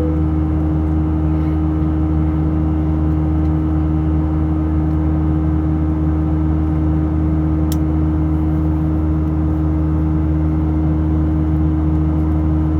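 Steady engine drone and rushing air inside an Airbus A319 cabin in flight: a constant low hum carrying several steady tones. A faint brief tick sounds about eight seconds in.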